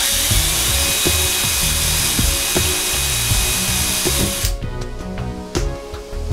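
Hitachi 18 V cordless drill running at speed, boring a 2.5 mm pilot hole into a ceiling panel, with a steady high whine; it stops abruptly about four seconds in.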